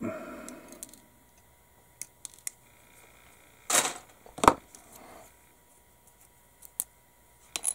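Sprue cutters snipping small plastic kit parts off a sprue: a few light clicks, then two sharper snaps about four seconds in, the second the loudest, with small ticks of the parts being handled.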